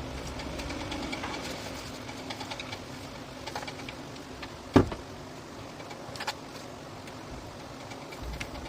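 Small clicks and taps of hand tools and parts being handled during electronics repair work, with one sharp knock about five seconds in and a lighter one a second and a half later, over a steady low background noise.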